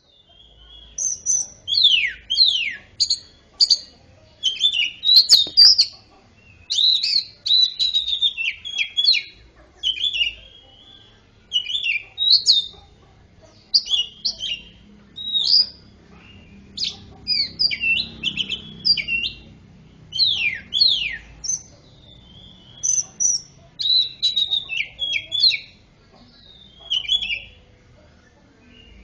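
Cucak ijo (greater green leafbird) singing a trained song stuffed with oriental magpie-robin (kacer) phrases: rapid chirps and steep down-slurred whistles, delivered in phrases of about a second separated by short pauses.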